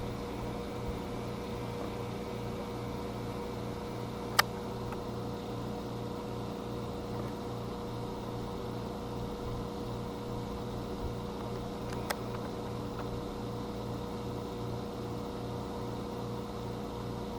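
Steady machine hum with a fan-like hiss, broken by two sharp clicks, one about four seconds in and one about twelve seconds in.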